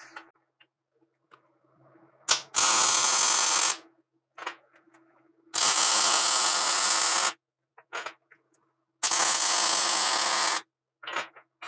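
Arc welding on steel tube: the arc crackles and hisses in three short welds of about a second and a half each, with a few brief blips between them. A faint steady hum sits underneath.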